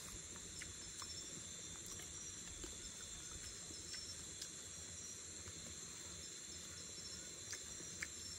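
Steady chorus of forest insects, a faint, even high-pitched drone, with a few faint ticks scattered through it.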